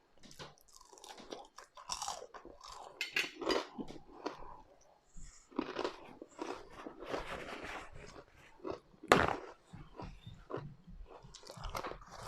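Close-miked chewing and crunching of fries with sauce, with irregular crackly mouth sounds and one sharper, louder crunch or click about nine seconds in.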